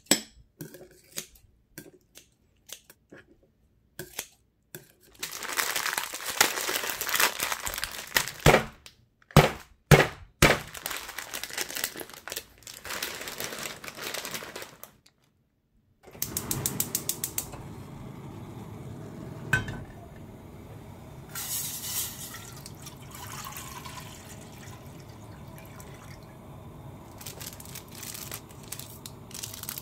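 Kitchen scissors snipping kimchi in a bowl with sharp clicks, then a ramen packet's plastic wrapper rustling and crinkling as it is torn open. After that, a steady hiss over a pot on a gas stove, with a few brief rattles as dried vegetable flakes are sprinkled in.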